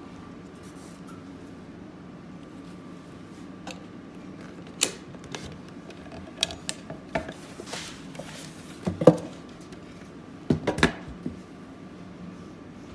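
Wooden shoe locker with a metal key lock being opened, shut and locked: a scattered run of clicks and knocks over a steady low room hum, the loudest knock about nine seconds in and a quick cluster of clicks just after.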